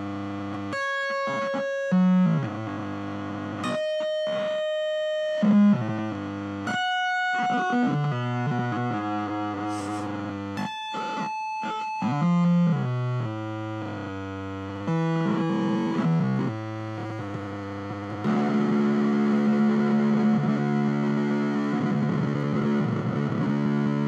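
Electric guitar played through a circuit-bent BOSS DS-1 distortion pedal, making weird glitchy 8-bit-like tones that hold a pitch and then jump to another, with short breaks between them. Near the end it settles into a thicker, steadier drone.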